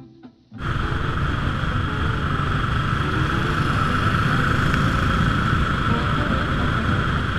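Vintage Saroléa 350 SuperSport motorcycle engine running at road speed, heard from a camera mounted on the bike, with wind rushing over the microphone. It cuts in suddenly about half a second in, after the last faint notes of an acoustic guitar.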